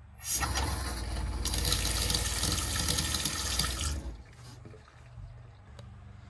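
Water running hard from a newly plumbed flick mixer tap into a stainless steel sink, starting just after the beginning and shut off about four seconds in. This is the first test of the tap on pump pressure.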